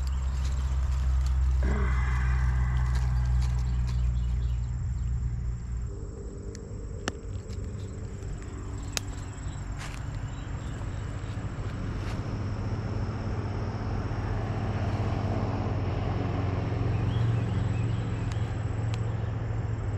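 A steady low engine hum, its pitch shifting about six seconds in, with scattered sharp clicks over it.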